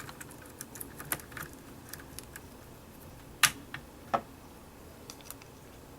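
Scattered light clicks and taps of the DVR's internal cables and their plastic connectors being handled and untied, with two sharper clicks around the middle.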